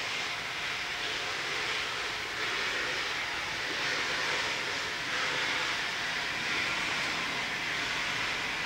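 A steam locomotive venting steam in a steady hiss, a little louder from about two and a half seconds in.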